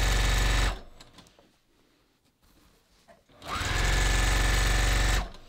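Juki sewing machine stitching fast: a run that stops under a second in, then after a pause about three seconds long the motor spins up again with a rising whine, runs steadily for nearly two seconds, and stops.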